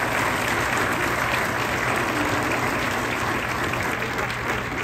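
Audience applauding, a dense patter of many hands clapping that eases a little toward the end.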